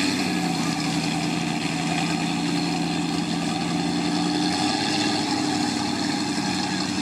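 Lifted full-size Ford Bronco's engine running at steady revs as the truck crawls on big mud tires through shallow mud and water. The engine note changes about four and a half seconds in.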